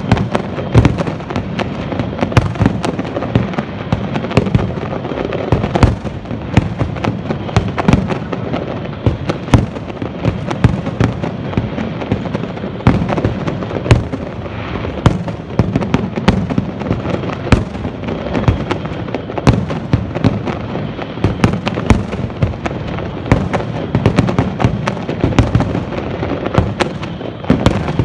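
Aerial fireworks display in a dense, continuous barrage: shells bursting in quick succession, many sharp bangs a second over a continuous rumble.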